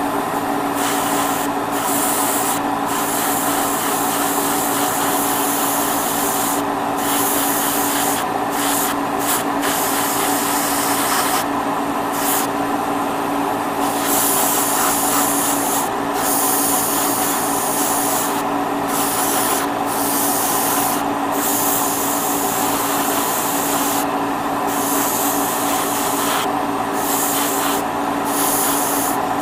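Airbrush hissing in repeated on-and-off passes as the trigger is worked, spraying light coats of paint onto a masked plastic model part, over a steady machine hum.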